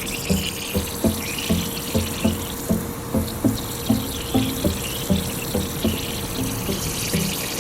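Water running or spraying steadily, over background music with an even, plucked low beat.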